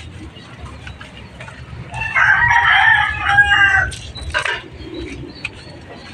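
A rooster crowing once, a single drawn-out call about two seconds long that starts about two seconds in.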